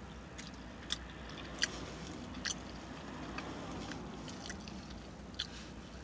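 Chewing a mouthful of breakfast crepe, soft, with a handful of short, sharp wet mouth smacks scattered through it.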